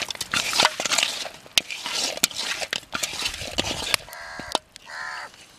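Hands mixing cut catfish pieces with spice powder in a metal bowl: wet, irregular squelching, crackling and scraping. Two short calls sound in the background about four and five seconds in.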